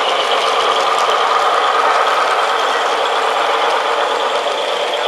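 Three-rail model train running along the layout: a steady whirring rumble of its motor and metal wheels on the track.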